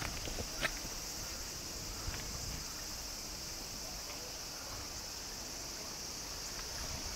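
A steady, high-pitched chorus of insects, with a single light tap about half a second in.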